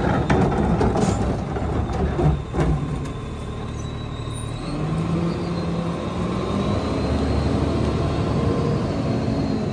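Lodal EVO garbage truck's engine running and pulling forward, its pitch rising from about five seconds in, with a faint steady high whine. A few knocks in the first three seconds as the emptied plastic cart is set down.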